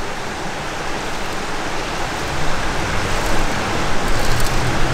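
Water sloshing in a steel wok as gold-panning concentrates are washed down, over a steady rush of running creek water.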